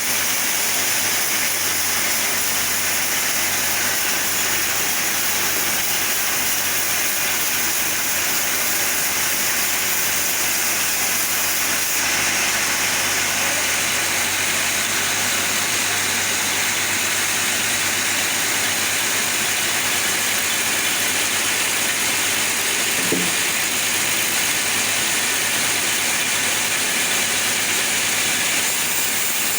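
Chainsaw running steadily under load, ripping lengthwise through a sapodilla log, with a constant hiss of cutting.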